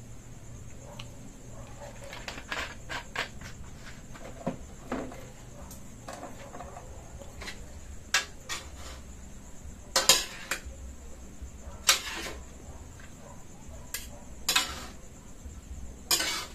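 Metal kitchen utensils clinking and scraping against a cooking pot, in scattered strokes with several louder clanks in the second half.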